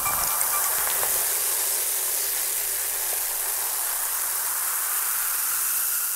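Steady, even hiss with no speech or music over it.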